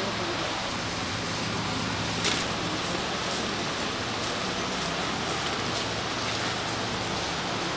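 Sauce-glazed chicken skewers sizzling steadily on a foil-lined hot grill plate, with a short click about two seconds in.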